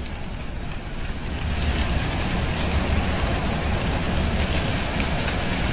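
Gusting wind rushing and rumbling on the phone's microphone, building about a second in, with dry leaves scraping and skittering over the asphalt as a small whirlwind stirs them up.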